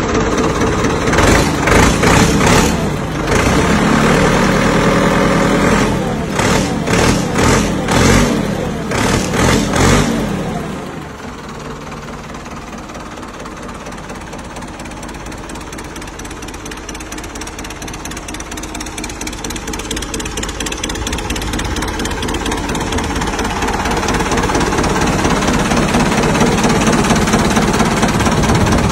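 Ford 6610 tractor's four-cylinder diesel engine running, loud and uneven with repeated surges for the first ten seconds, then settling to a steady idle that grows louder again near the end.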